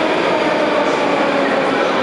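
Moscow Metro train running through the station: a steady, loud rumble with a faint tone in it, echoing in the vaulted station hall.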